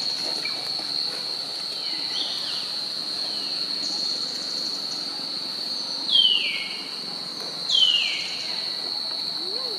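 Steady high-pitched insect drone. Past the middle come two loud calls falling in pitch, about a second and a half apart.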